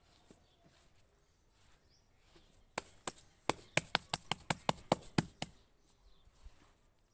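Bare hands patting and slapping a lump of wet cow dung mixed with sawdust: a quick run of about fifteen sharp slaps, some five a second, from about three seconds in until about five and a half seconds.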